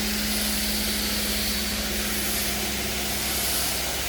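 CNC machine cutting 5083-H116 marine aluminium plate: a steady hiss with a low hum that stops about halfway through.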